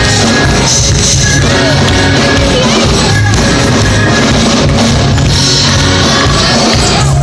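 Loud gospel song: singing over a full band with drums.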